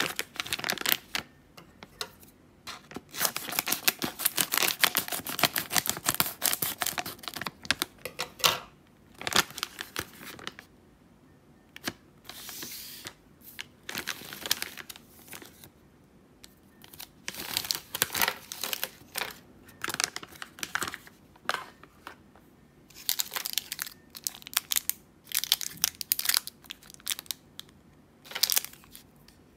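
Plastic candy pouch crinkling and tearing as it is handled and opened, then individually wrapped candies rustling in their plastic wrappers. The crinkling comes in spells with short quiet gaps.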